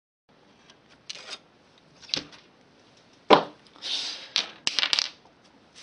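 Workbench handling sounds: a few sharp knocks and clacks as small metal weights are lifted and set down on the bench, the loudest about three seconds in. Between them come stretches of scraping and rubbing as the paper template slides across the bench.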